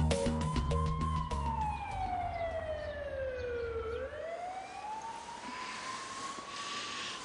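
Background music with a beat stops about two seconds in, leaving one wailing tone that glides slowly up, falls to a low point about four seconds in, and rises again, like a siren.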